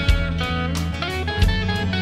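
Instrumental electric blues: an electric guitar plays a stepping single-note melody over a band backing of steady low notes and a regular beat.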